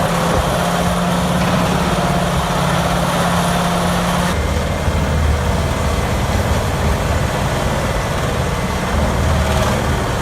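Vermeer HG6800TX horizontal grinder, a heavy diesel-driven machine, running loud and steady as it feeds material. About four seconds in, its steady hum drops to a lower, heavier drone.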